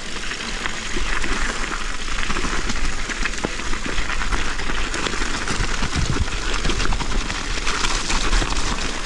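Mountain bike rolling at speed: a steady rush of tyre noise with many small rattles and clicks, getting louder about a second in.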